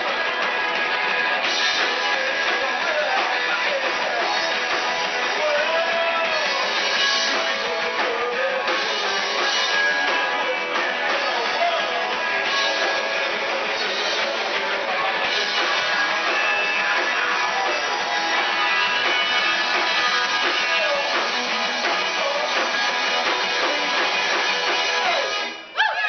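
Live rock band playing: electric guitars strumming over a drum kit, with a man singing into a microphone. The music cuts off suddenly near the end.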